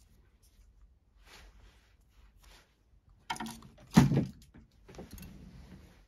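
Handling noise of a woven nylon paracord collar being squeezed and worked in the fingers: soft rustles, then two louder knocks about three and four seconds in, the second the loudest.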